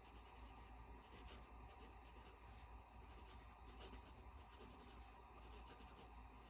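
Faint scratching of a Rotring Art Pen fountain pen's medium steel nib writing on notebook paper, in short irregular strokes as letters are formed.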